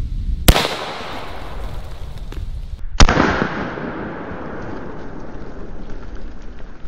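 Zeus .72-calibre (12-gauge) big-bore air shotgun firing a shot shell: a sharp report about half a second in, then a second, louder report about two and a half seconds later, each trailing off over a second or so.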